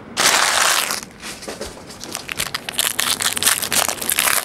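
Foil trading-card pack wrappers crinkling and tearing: a loud rush of crumpling foil about a second long at the start, then continued crackling as the next pack is handled and opened.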